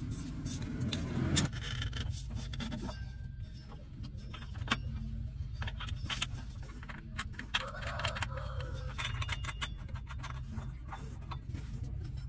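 Metal hand tools and parts clinking, tapping and scraping against a truck's undercarriage, in scattered short clicks, over a steady low hum.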